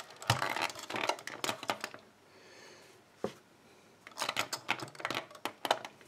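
Small metallic clicks and scrapes of a lock pick and tension wrench being handled in a small pin-tumbler padlock's keyway, in scattered groups with a quiet gap near the middle.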